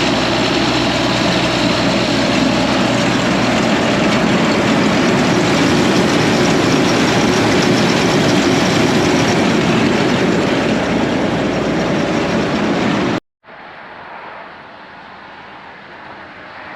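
Case IH 2188 combine running with its engine and machinery engaged, a loud steady mechanical din that shows no rattling. It cuts off abruptly about 13 seconds in, giving way to a much quieter steady hum.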